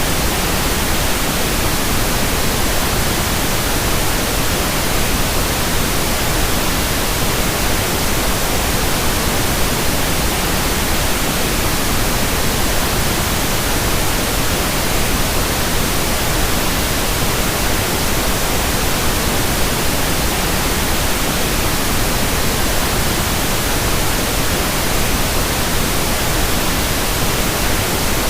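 Tinnitus masking noise: a steady, unchanging hiss spread evenly from the lowest to the highest pitches, with no tones or breaks.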